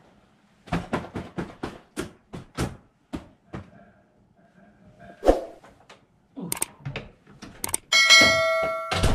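A run of quick knocks and rustling clatter, then a single loud thump and a few sharp clicks. Near the end comes the electronic unlocking chime of a digital keypad door lock, about a second long.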